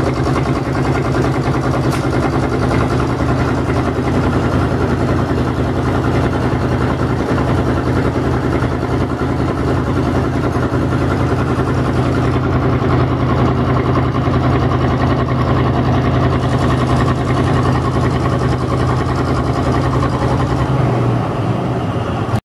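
Northwest 80-D crane's engine running steadily with a strong low drone; its low note changes shortly before the end.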